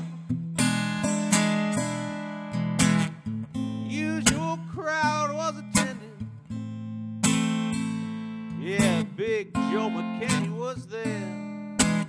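Acoustic guitar, a Stella, playing a slow blues ballad: struck chords ring over steady bass notes, with picked melody notes bending up and down in between.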